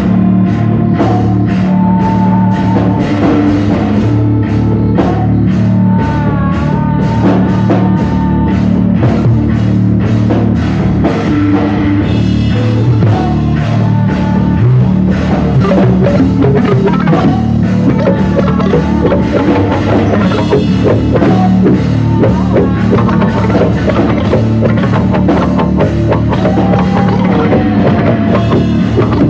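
Loud rock music with drum kit, distorted guitar and vocal lines, heavily compressed and distorted.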